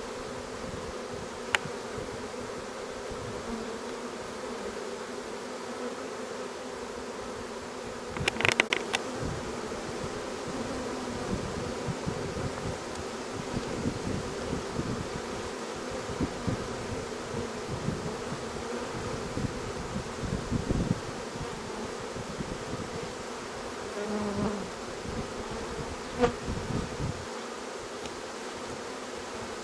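Honeybees from a newly hived swarm buzzing at the hive entrance: a steady hum, with single bees buzzing louder as they fly close past. A brief sharp knock about eight seconds in.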